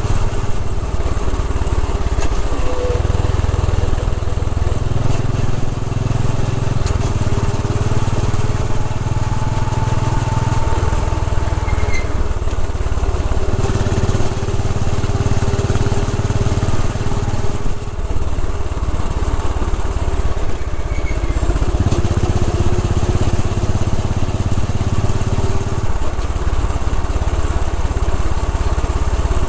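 Royal Enfield Bullet 500's single-cylinder engine running at road speed, heard from a camera mounted on the bike, its low exhaust note stepping up and down every few seconds with the throttle, over a steady rush of wind and road noise.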